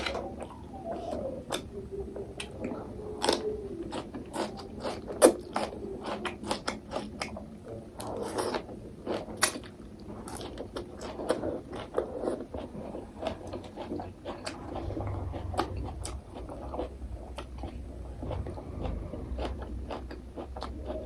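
Close-up eating of instant ramen noodles: chewing and biting with many irregular short clicks, one sharp click about five seconds in.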